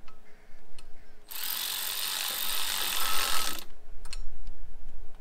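Cordless power tool running for about two and a half seconds, starting about a second in, as it drives in a bolt on a new water pump. A few sharp clicks of the tool and socket come before and after it.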